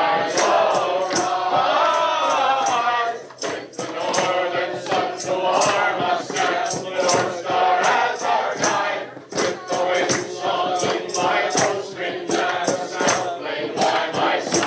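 A choir singing a song, with a sharp, steady beat of about two strokes a second under the voices.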